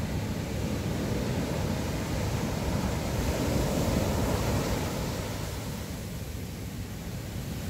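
Ocean surf breaking and washing up a sandy beach: a steady rush of water that swells about three to four seconds in and then eases.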